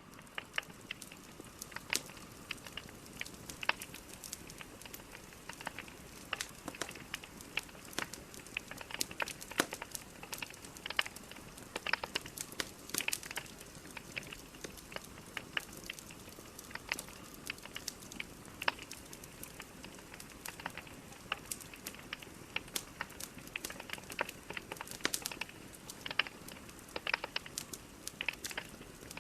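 Burning logs in a fireplace crackling, with many irregular sharp pops and snaps over a steady low hiss.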